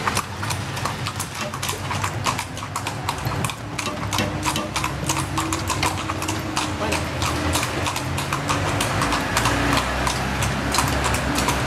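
Hooves of carriage horses clip-clopping on the street, a steady run of sharp strikes about four a second. A low steady engine hum joins about three to four seconds in.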